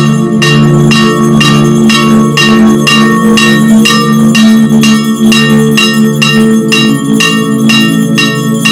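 Bells rung in rapid, even strokes, about three a second, with low sustained tones beneath. This is the ringing that accompanies the blessing with the Blessed Sacrament raised in a monstrance.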